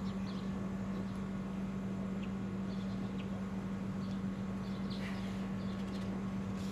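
A steady low hum with about half a dozen faint, short, high chirps scattered through it.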